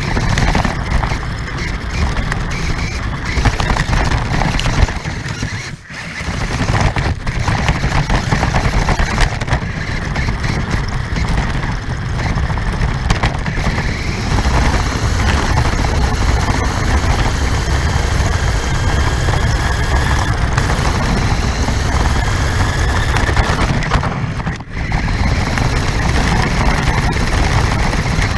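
A radio-controlled car driving, heard from a camera mounted on it: a loud, rough rumble of the wheels and chassis over the ground with a faint whine from the motor and gears. The sound drops out briefly twice, about six seconds in and near the end, where the car lets off.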